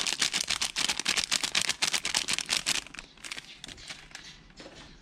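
Plastic spice packet crinkling and rustling as chili powder is shaken out of it: dense rapid crackling for about three seconds, then thinning to scattered clicks.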